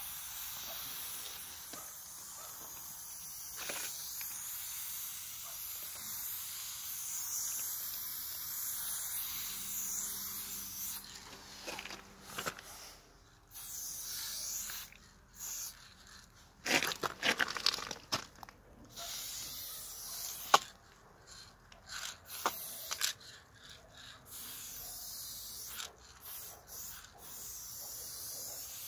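Aerosol spray paint can hissing as paint is sprayed onto a wall: one long pass for about the first ten seconds, then shorter bursts with pauses between them and a few sharp clicks.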